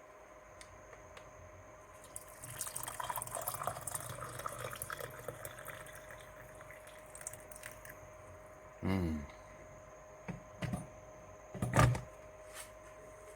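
Freshly boiled water poured from a cordless electric kettle into a cup, running for about four seconds from about two seconds in. A few knocks follow, the loudest a sharp one near the end.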